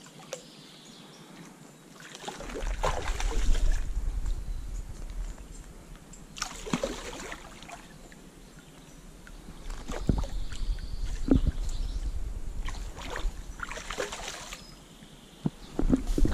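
Water splashing and sloshing in about four separate bursts, with a low rumble underneath from about two seconds in.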